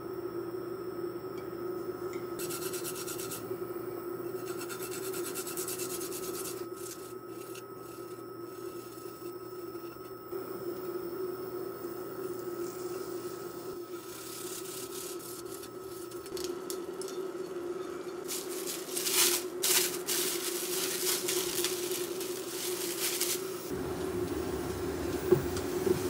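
Garlic grated with a metal rasp grater over a frying pan, a run of quick rasping strokes, over a steady hum. Near the end ground meat goes into the pan.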